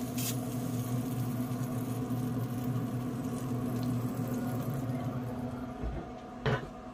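A short hiss from a hand-pump sprayer right at the start, over a steady hum from the running Pit Boss pellet grill. Near the end the grill lid is lowered, with a small knock and a short falling squeak.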